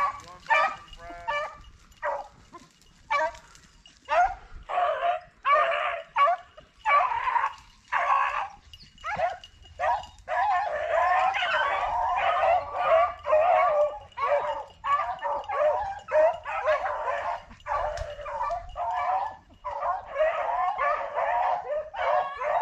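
A pack of rabbit hounds baying as they run a rabbit's track: separate calls at first, then from about ten seconds in several dogs giving tongue at once in a nearly continuous chorus.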